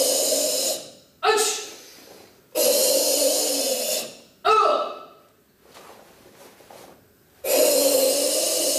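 Karateka's forceful kata breathing: long, loud hissing exhalations of about a second and a half each, one ending just after the start, one in the middle and one starting near the end. Short, sharp voice calls come in between, about a second in and about four and a half seconds in.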